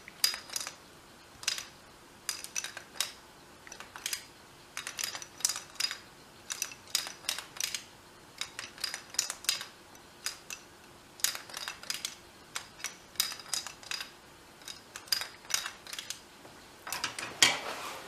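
Tumbling-block ladder toy clicking as the block flips end over end down the rungs, in short runs of sharp clicks repeated each time the ladder is turned back. A louder clatter near the end as the ladder is laid down on the table.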